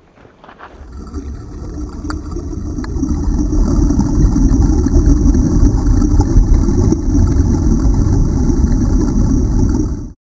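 Loud, muffled rumble of churning water picked up by a camera underwater in a swimming pool, with a steady hiss above it. It fades in over the first few seconds and cuts off abruptly at the end.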